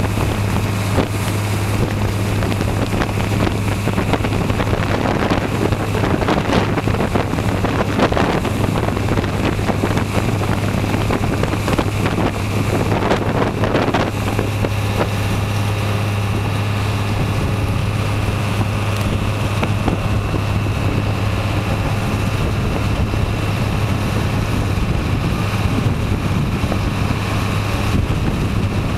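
Small harbour ferry's engine running steadily under way, a constant low hum. Water rushes in the churning wake, and a few gusts of wind buffet the microphone in the first half.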